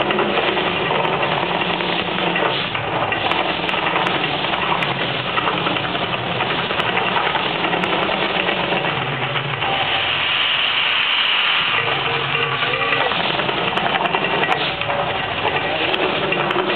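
The Mirage volcano show's effects running: a loud, steady hissing rush with a low hum beneath it, and a brighter hiss that swells for a second or two past the middle.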